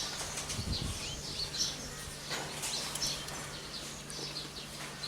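Small birds chirping now and then in short high calls, over a faint steady low hum.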